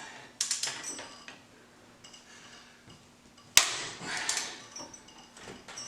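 Metal-on-metal clinks of a socket wrench on the cylinder head bolts of a Ford 3.8 L V6, with one sharp, loud metallic crack about three and a half seconds in, followed by a few lighter clicks.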